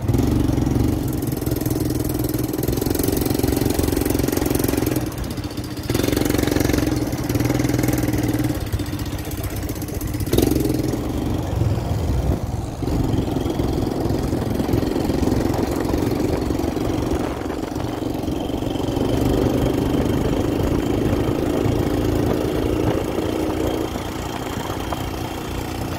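Quad bike engine running steadily, with a few brief dips in level.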